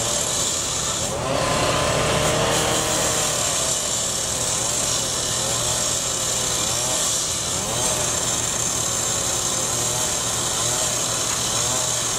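Power cut-off saw with an abrasive disc grinding through the steel of a chain-link fence, a continuous harsh cutting noise with the motor's pitch wavering up and down as it bears into the metal.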